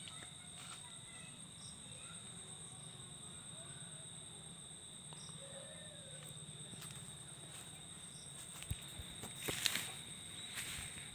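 Insects droning steadily at a high pitch, over a faint low hum. Footsteps and a few sharp knocks and rustles come near the end, the loudest part.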